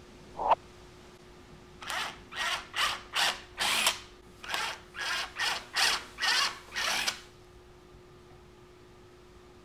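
Cordless drill with a small bit boring a shallow pilot hole into a wooden board for a caster-wheel screw. It runs in about eleven short bursts over five seconds.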